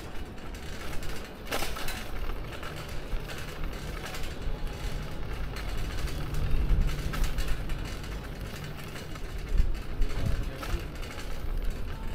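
City bicycle with a front wire basket ridden over brick paving, its parts rattling and clicking over a steady low rumble. One sharper click about a second and a half in.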